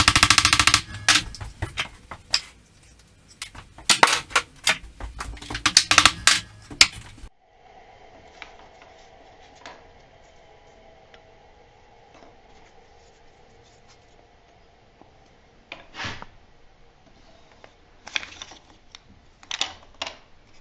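Claw hammer tapping a wooden bracket joint together: a quick run of sharp blows at the start, then two more bunches of blows a few seconds later. After an abrupt cut about seven seconds in, only a faint steady hum with a few scattered knocks from wood being handled.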